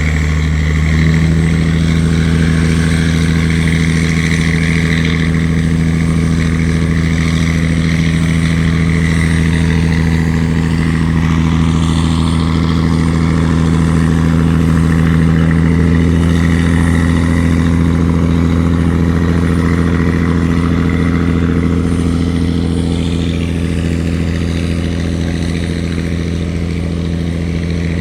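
Wooden river tugboat's engine running steadily with a deep, even drone; its note steps up a little about a second in.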